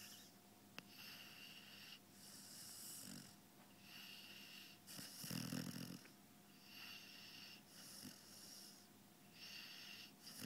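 Five-month-old Labrador puppy snoring softly in its sleep: a steady run of airy breaths about every second and a half, with one deeper, louder snore about halfway through.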